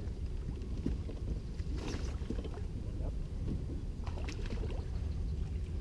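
Steady low rumble of water and wind around a small fishing boat. Brief splashy noises come about two seconds in and again a little past four seconds.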